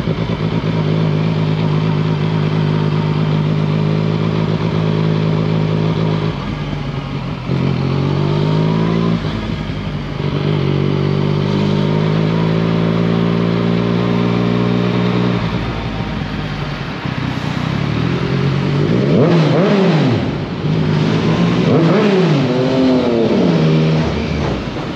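Motorcycle engine running at low road speed, holding a steady note, then rising in pitch about eight seconds in as the bike accelerates. Near the end it revs sharply up and down twice.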